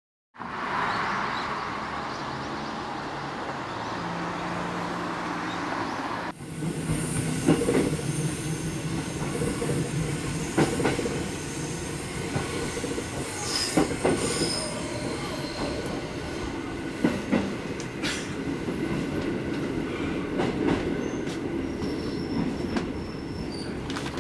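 Electric commuter train running on its rails, heard from inside at the front of the car: a steady rumble with a low hum, irregular clicks as the wheels cross rail joints and points, and brief high-pitched wheel squeals.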